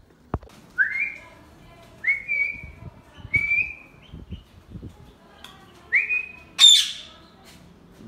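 Indian ringneck parrot (rose-ringed parakeet) making four short whistles, each sliding up and then holding its pitch, followed by one loud harsh squawk near the end.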